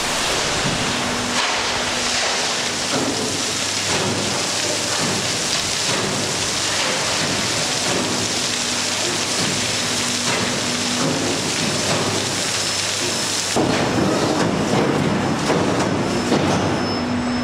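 Coal pouring from an overhead loading bunker into hopper wagons as the train rolls slowly through: a loud, steady rushing rattle, with a low machinery hum that comes and goes.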